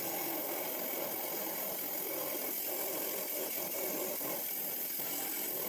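Rock saw running steadily while cutting through a cold water agate nodule, a level grinding hiss.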